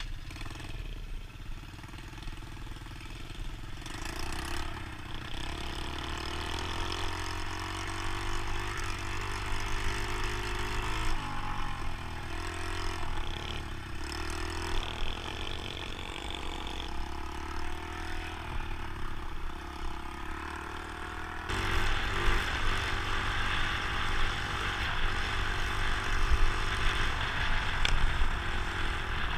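Dirt bike engine heard from the rider's helmet camera while riding over dirt, its pitch rising and falling as the throttle changes. About two-thirds of the way through it turns louder and harsher.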